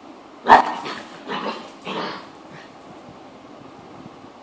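Small poodle barking: one loud, sharp bark about half a second in, then two quieter barks within the next second and a half.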